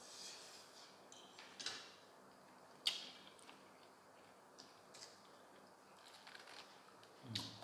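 Close-up mouth sounds of eating braised chicken feet: scattered lip smacks and wet sucking clicks as the meat is picked off the bones at the fingers. The sharpest click comes about three seconds in.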